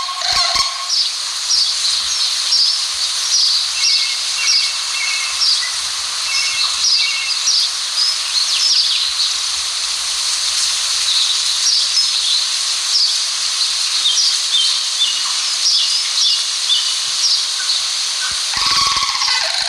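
Small birds chirping: many short, high, falling chirps and twitters over a steady hiss of outdoor background noise. Honking crane calls stop about a second in and start again near the end.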